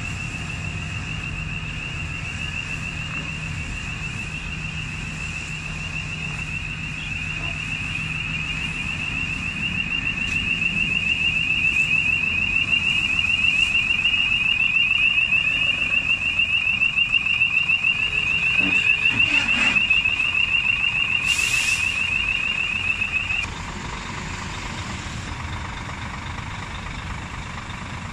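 Reversing alarm on a Scania G440 heavy-haul truck and lowboy trailer sounding a rapid, continuous pulsing beep that grows louder, then cuts off suddenly about 23 seconds in. The truck's straight-six diesel runs underneath, and there is a short hiss about 21 seconds in.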